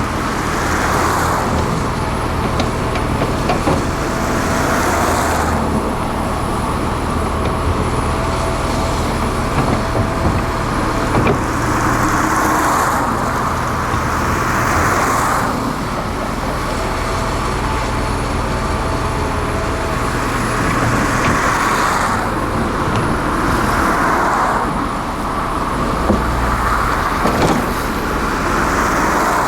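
Diesel engines and hydraulics of heavy excavating machines at work. A steady low engine hum, with a louder hydraulic note swelling and fading every few seconds as the machines take load.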